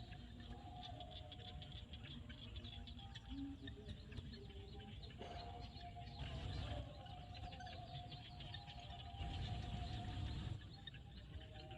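Frogs calling in a field at dusk: a dense chorus of rapid short clicks and chirps, with longer held calls woven through it.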